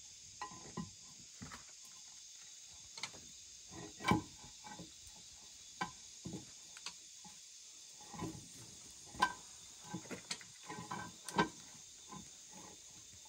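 Split firewood sticks knocked and clacked against each other and the stone hearth as they are laid on a small wood fire, in irregular knocks with the loudest about 4, 9 and 11 seconds in. A steady high insect chorus goes on behind.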